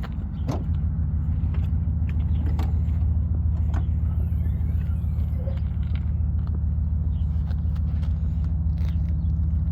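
Small-block Chevy 350 V8 running steadily with an even, low exhaust rumble and no revving, through a custom exhaust that keeps the Jaguar muffler.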